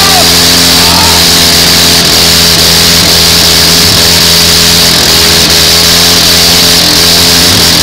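Engines of several compact demolition-derby cars running together, loud and steady.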